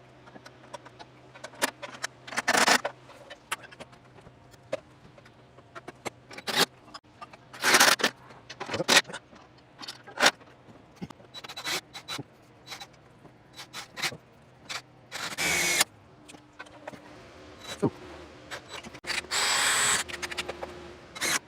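Hands-on work with tools and parts: scattered knocks and clicks, with several short scraping rasps, the longest near the end.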